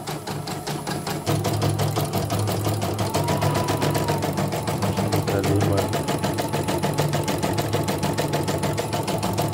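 Portable embroidery machine stitching at speed, a rapid steady clatter of needle strokes that steps up a little about a second in. It is a test run after a new bobbin case and thread tension assembly were fitted to cure a thread-break sensor error.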